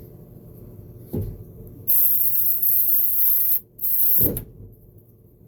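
Aerosol electrical contact cleaner sprayed in two hissing blasts onto the centrifugal start-switch contacts of a radial arm saw motor, cleaning out crud. The first blast lasts about a second and a half, and the second, shorter one follows after a brief break. There are a couple of soft knocks as well.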